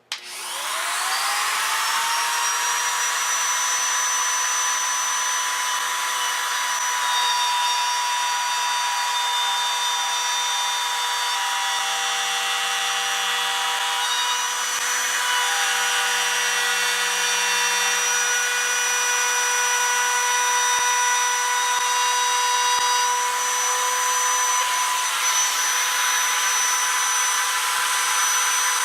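Trim router with a 1/4-inch upcut spiral bit switched on, its whine rising as the motor spins up within about a second, then running at a steady pitch while cutting a channel in half-inch MDF.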